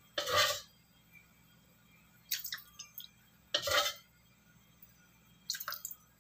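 A metal ladle scooping leftover frying oil out of a wok: four short scrapes of the ladle against the wok as the oil is taken out.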